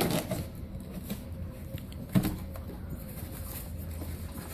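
Faint rustling and handling of a packed present box being opened, with one sharper knock about two seconds in over a steady low hum.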